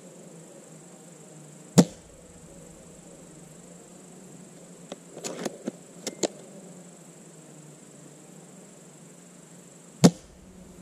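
Spring-powered bolt-action airsoft sniper rifle (Classic Army SR-40 with an M160 spring) fired twice, each shot a single sharp crack, about eight seconds apart. Midway between the shots there is a short run of clicks as the bolt is worked to cock it for the next shot. A steady high insect chirr runs underneath.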